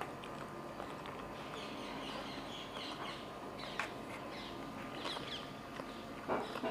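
Faint, scattered bird chirps in the background, with a few soft clicks and mouth sounds of someone eating.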